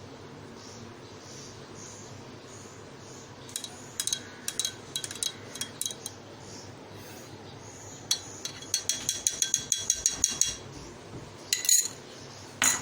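Metal spoon clinking against glass: a few scattered clinks, then a quick run of rapid clinks lasting about two seconds, like stirring in a glass, and two sharper knocks near the end.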